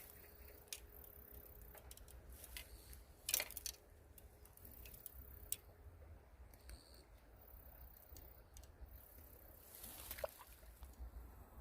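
Quiet outdoor ambience with a faint low rumble and a few scattered small clicks and taps, the loudest about three seconds in.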